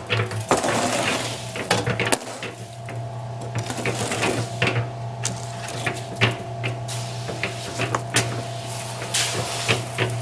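Harbor Freight electric concrete mixer running with a steady low motor hum, its turning drum giving irregular knocks and clatter from the concrete inside.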